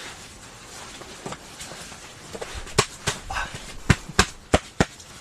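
A run of about six sharp knocks or taps in the second half, unevenly spaced over about two seconds, over a low background hiss.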